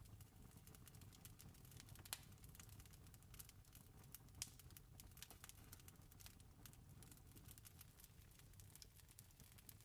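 Faint campfire crackling: a steady scatter of small crackles over a low rumble, with two sharper pops about two and four and a half seconds in.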